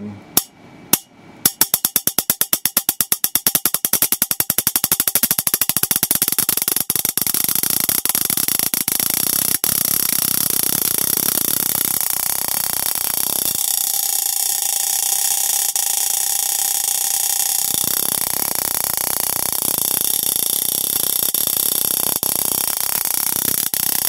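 Water-drop-triggered high-voltage spark gap, fed by a flyback transformer supply with a 4 nF capacitor bank, firing as water drops fall between its electrodes. A few separate loud pops come first, then from about a second and a half in a rapid train of snaps that speeds up as the drip rate is raised, merging by about six seconds in into a continuous crackling buzz.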